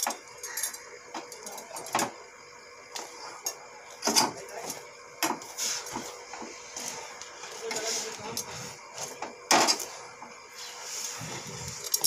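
A flat metal spatula clinking and tapping against a steel gas stove, burner grate and pan while rotis are turned and puffed over the flame: sharp clinks a second or more apart, with quieter handling noise between them.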